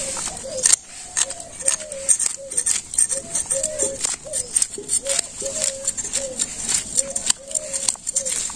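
Scales being scraped off a rohu fish against a bonti blade: a rapid, irregular series of sharp scraping clicks. Behind it an animal or bird gives a short falling call over and over, about twice a second.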